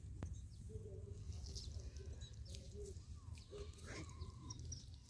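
Short scattered bird calls, some gliding in pitch, over a low steady rumble.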